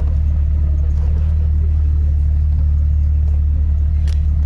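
Car driving: a steady low rumble, with a brief click about four seconds in.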